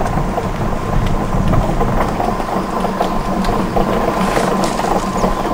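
Heavy machinery running steadily, an engine drone with many small rattles and clicks over it.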